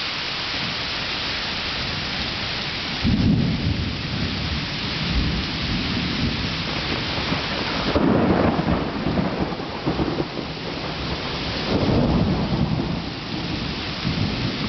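Heavy rain pouring steadily, with thunder: a sudden loud rumble about three seconds in, and further rolling rumbles around the middle and near the end.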